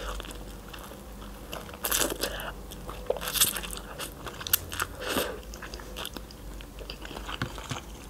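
Close-miked mouth sounds of eating instant noodles: chewing with many small wet clicks, and a few louder short bursts about two, three and a half and five seconds in.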